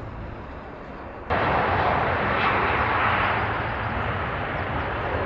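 Steady aircraft engine noise: a low rumble at first, then, about a second in, an abrupt cut to a much louder, even rush of engine noise that holds steady.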